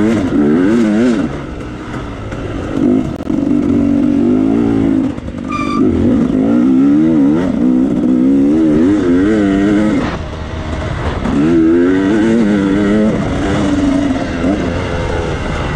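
Dirt bike engine racing through a woods hare scramble course, its revs rising and falling constantly with quick throttle changes and easing off briefly a couple of times. A short high squeak comes through once, about six seconds in.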